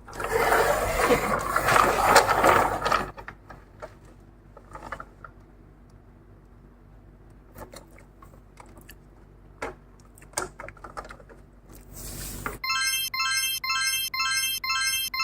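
Rustling of a die-cast toy car's packaging being handled for about three seconds, then scattered small clicks and taps. Near the end comes a short electronic jingle of evenly repeated chime notes.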